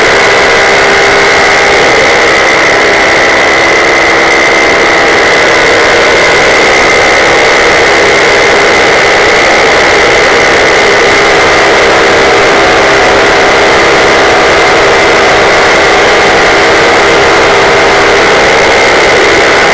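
Paramotor engine and propeller running steadily in flight, very loud and close, holding one constant pitch with no change in throttle.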